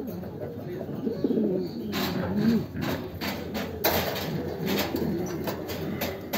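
Many domestic pigeons cooing in a loft, a dense chorus of overlapping low, warbling coos. From about two seconds in, a series of short sharp clicks or knocks joins the cooing.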